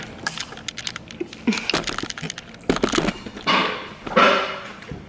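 Eating sounds from someone chewing a burrito: a run of small wet mouth clicks and crinkles, then a couple of longer breathy, slurping noises near the end.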